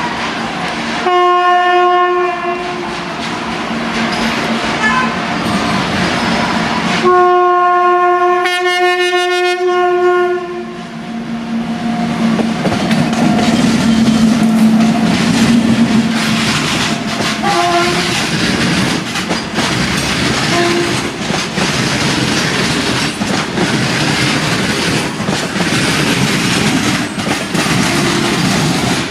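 Locomotive horn sounding two long blasts, the second longer, followed by a train rolling past with wheels clicking over the rail joints.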